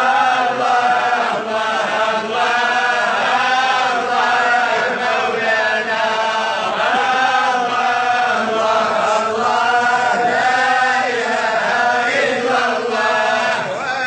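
Chanted vocal soundtrack: a single voice holding long, wavering melodic lines that glide between notes.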